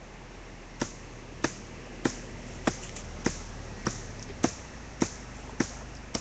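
Axe chopping into a small tree trunk: about ten short, quick strikes in a steady rhythm, a little under two a second, from small swings.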